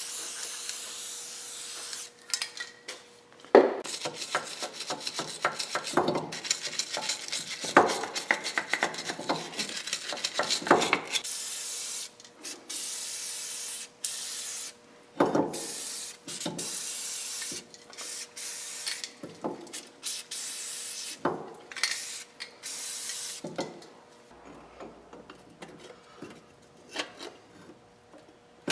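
Aerosol spray can hissing in several long bursts as it coats a wheel bearing hub and the steering-knuckle bore, with shorter bursts later on, broken by scattered knocks of metal parts being handled. The last few seconds are quieter, with only light clicks and handling.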